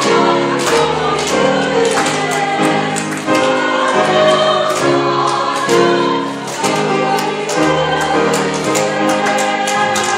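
Women's choir singing a church song in harmony, with piano accompaniment and a steady beat.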